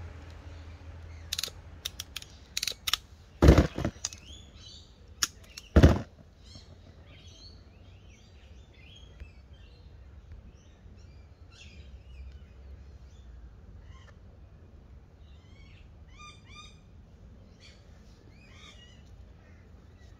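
Hand ratchet crimper clicking shut on a bootlace ferrule, with two loud snaps a couple of seconds apart. After that, birds chirp and call steadily.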